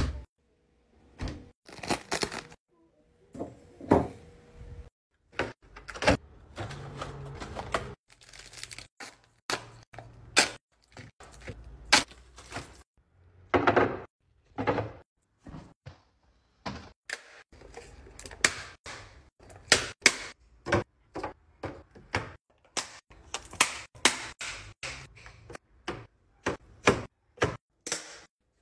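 A quick run of separate clicks, knocks and crinkles: snack packets, plastic and foil tubs and cardboard sleeves being handled and set into clear plastic organiser bins, with short rustles between. A refrigerator door opens at the very start.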